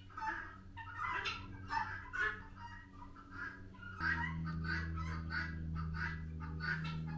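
Chickens clucking over and over in short repeated calls. A steady low hum comes in suddenly about four seconds in.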